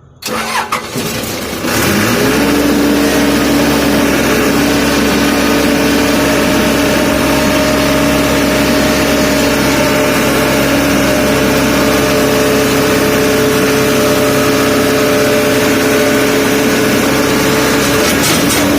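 Skid steer engine throttled up about two seconds in, its pitch rising, then running steadily at high revs as it works a load of manure.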